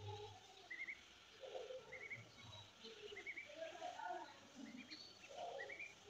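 Indian ringneck parrot vocalizing faintly: soft mumbled chatter mixed with short clusters of high chirps that come about once a second.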